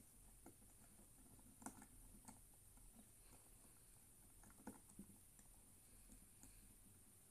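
Faint, sparse metallic clicks of a lock-opening tool being worked in a Kaba-type lock cylinder, a few small ticks spread over several seconds.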